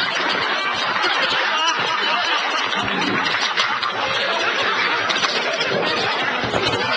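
People laughing and chuckling, mixed with a continuous noisy background.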